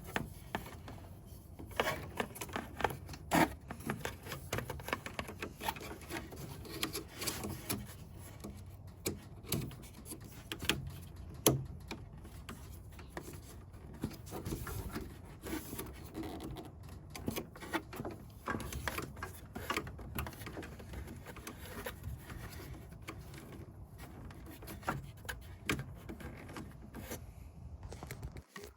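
Hands working inside a Bambu Lab P1S 3D printer's housing to fit a light bar: a hex key turning a screw, a plastic clip being attached and the light bar snapped in. Irregular clicks, taps and rubbing, with a sharper click about eleven seconds in.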